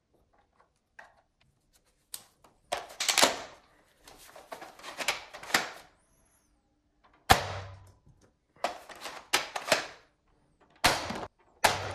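Plastic clicks, clunks and rattles of a toy foam-dart shotgun blaster being handled and worked, with a few sharp knocks.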